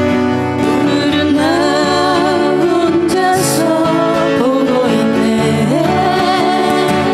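Live acoustic guitar music with a wavering lead melody line held over the strummed chords.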